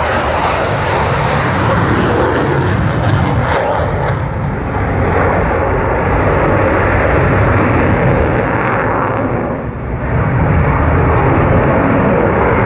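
Military jet flying overhead: a loud, continuous rush of jet engine noise, dipping briefly about three-quarters of the way through.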